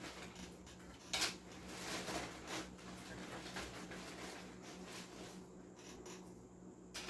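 Light handling noises of tools and wire at a loudspeaker's terminals during soldering: a sharp click about a second in, scattered small clinks and rustles, and another click near the end, over a faint steady hum.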